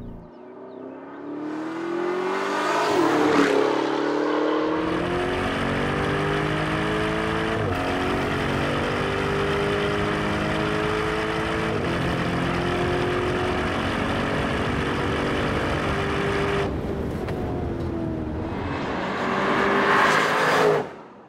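Lamborghini Urus's 4.0-litre twin-turbo V8 accelerating hard through the gears. The engine note climbs steadily and drops sharply at each upshift, about three times. It swells to its loudest near the end, then cuts off abruptly.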